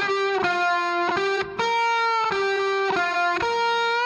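Instrumental background music: a lead melody of held notes, changing two or three times a second.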